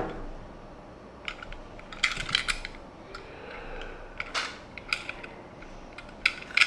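Scattered light clicks and taps of hands handling a small die-cast toy car and its packaging, with a quick cluster of clicks about two seconds in.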